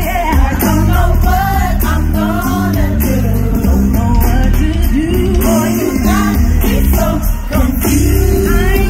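Live R&B vocal group singing with a band over a heavy bass line, loud and continuous.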